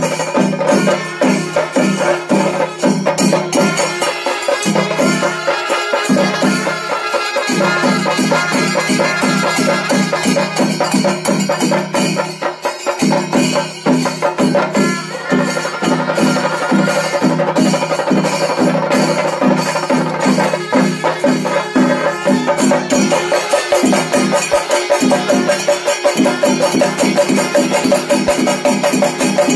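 Chenda melam: an ensemble of Kerala chenda drums beaten with sticks in a fast, dense, unbroken rhythm.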